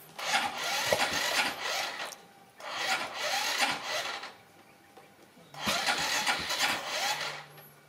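Honda motor scooter's electric starter cranking in three separate tries of about one and a half to two seconds each, with short pauses between them.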